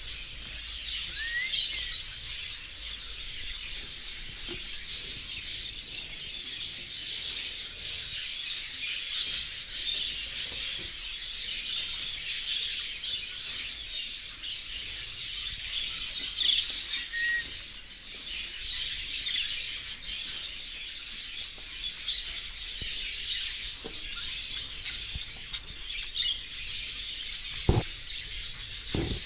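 A colony of budgerigars chattering and chirping continuously, many birds calling over one another in short warbles and tweets. Two dull knocks sound near the end.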